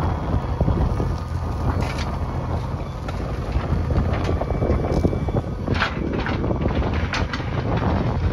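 JCB backhoe loader's diesel engine running steadily, with wind buffeting the microphone. A few short, sharp sounds stand out above the engine partway through.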